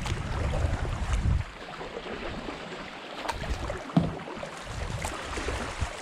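Water splashing and rushing around a kayak on a flooded creek, with wind rumbling on the microphone for the first second and a half and a single sharp knock about four seconds in.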